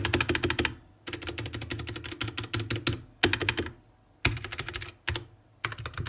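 Mechanical keyboard with Gateron Brown tactile switches being typed on in quick runs of keystrokes, broken by short pauses of a fraction of a second.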